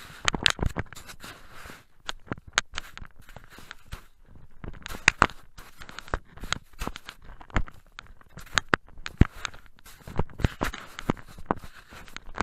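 Camera handling noise: irregular clicks, knocks and crackling rustles of the camera body rubbing and bumping while it is carried, with no even rhythm.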